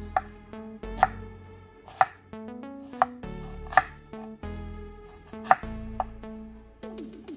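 Chef's knife chopping food: seven or so sharp, ringing strikes of the blade, roughly one a second, over background music.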